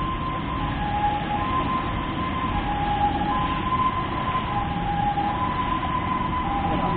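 Steady road traffic with a two-tone hi-lo siren over it, switching back and forth between a higher and a lower pitch about once a second.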